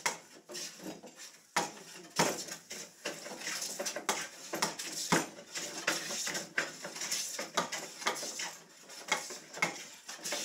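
Irregular knocking and clattering of hand woodworking tools on wood at a workbench, many sharp knocks of varying loudness throughout.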